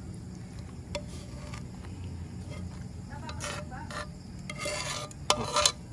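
A metal spatula scraping prawns and thick sambal out of a pan onto a plate, in a few short scrapes with sharp clinks of metal on the pan near the end, over a steady low hum.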